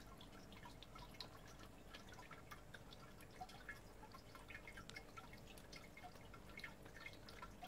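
Homemade 3D-printed water feature: faint, irregular drips of water falling into its basin.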